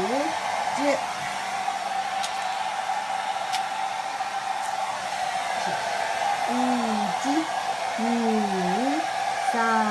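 Hand-held hair dryer running steadily. Over it, a voice makes short sliding rising-and-falling sounds, a couple near the start and several in the second half.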